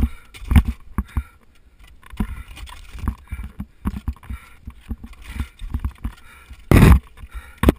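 Irregular knocks and thuds against an ice wall as a climber is lowered down it on the rope with ice axes in hand. A louder noisy burst comes near the end.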